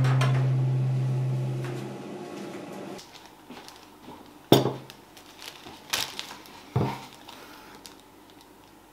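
Background music fading out over the first couple of seconds. Then a few sharp light knocks of dishes being handled on a table: the loudest about four and a half seconds in, two more near six and seven seconds.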